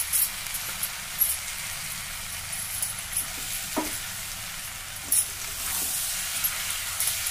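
Spiced mixed vegetables sizzling steadily in a steel frying pan while curd and chopped coriander are stirred in, with a few sharp clicks of a spoon against the pan.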